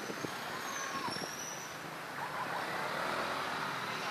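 Steady roadside traffic noise, with a few faint short calls in the background.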